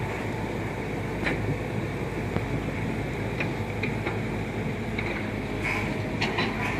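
Caterpillar 320C excavators' diesel engines running steadily as they dig, with scattered sharp metallic clinks of buckets and tracks.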